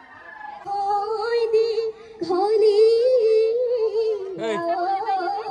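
A woman singing a Bihu song without accompaniment, holding long notes that she bends and warbles. The song breaks off for a moment about two seconds in and then goes on.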